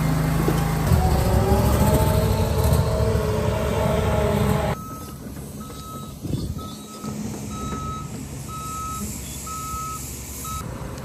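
A heavy machine's engine runs loud under load with a slowly rising whine, then the sound cuts off abruptly to a quieter scene where a backup alarm beeps steadily, a little over one beep a second.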